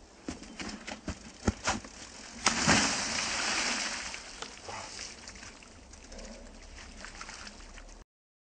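BMX bike and rider crashing into a muddy puddle: several sharp knocks, then a loud impact about two and a half seconds in followed by a few seconds of splashing and sloshing that dies away.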